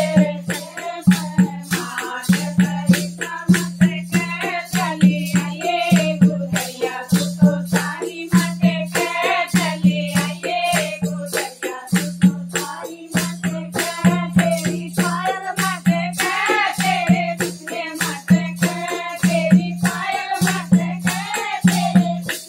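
Women singing a folk song together, with rhythmic hand-clapping and a plastic rattle shaken on the beat, over a steady low pulsing beat.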